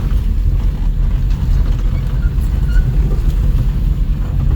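A small vehicle's engine running steadily with a low rumble.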